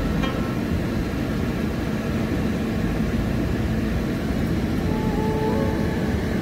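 Car engine and tyre rumble heard from inside the cabin while driving, a steady low noise.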